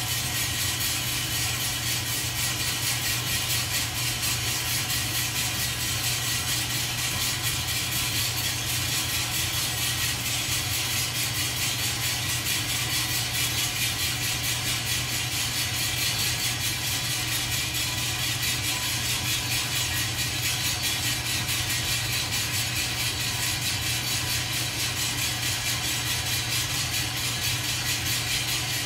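Small coffee roaster running steadily, roasting a 100 g batch of coffee beans: an even motor hum under a constant fan hiss that does not change.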